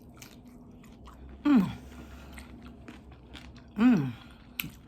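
Chewing and biting into a crispy fried chicken wing, with faint crunches and clicks, broken twice by a short hummed vocal sound that falls in pitch.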